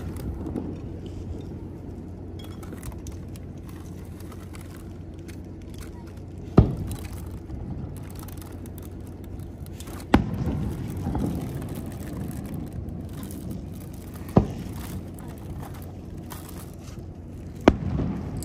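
Fireworks shells going off: four sharp booms several seconds apart, each followed by a rumbling echo, over a steady low background noise.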